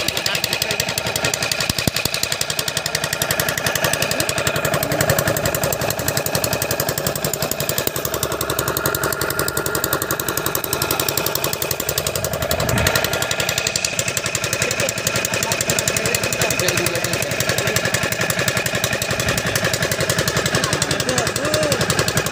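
Boat engine running steadily, a fast, even pulse that does not let up.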